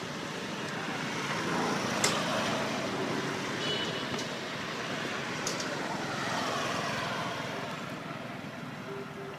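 Road traffic passing: a vehicle's noise swells up, peaking about two seconds in, and again around six seconds. Two sharp clicks stand out over it.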